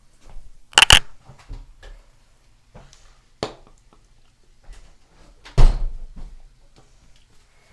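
A few sharp knocks and thumps in a small room: a quick double knock about a second in, a lighter knock in the middle, and a heavier thump near the end.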